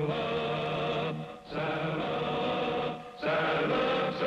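A chorus singing long held notes in three phrases, breaking briefly about a second in and again about three seconds in: the wordless opening of a Western TV series' theme song.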